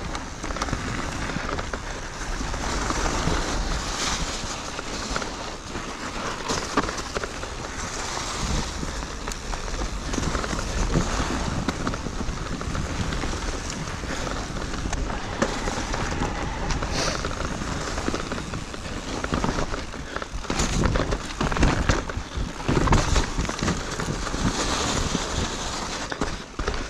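Riding sound of an Intense Tazer electric mountain bike on a rough, snowy trail: steady wind rumble on the microphone with tyres crunching and frequent knocks and rattles from the bike over bumps.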